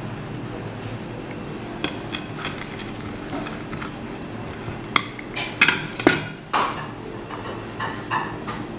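A metal pizza cutter wheel scrapes and clicks against a ceramic plate as it rolls through a crusty baked sandwich. The strokes come in irregular bursts, loudest and closest together about five to seven seconds in, over a steady low hum.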